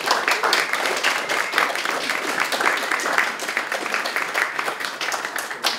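Audience applauding, a dense patter of hand claps that thins and dies away near the end.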